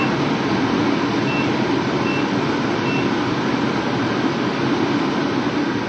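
Kitchen range hood fan running loudly and steadily over chicken pieces searing in a pan, with a few faint short beeps.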